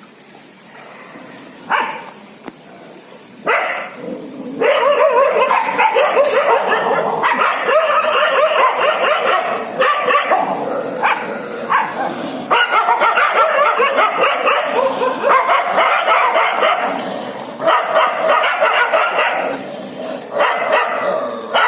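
A pack of dogs barking and yelping over one another. A few single barks come in the first few seconds, then from about four and a half seconds in many dogs bark almost without pause, with a few brief lulls.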